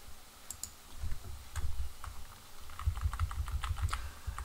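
Irregular clicking of computer keys, with dull low thumps underneath, as a document is scrolled on screen. The clicks come thicker in the second half.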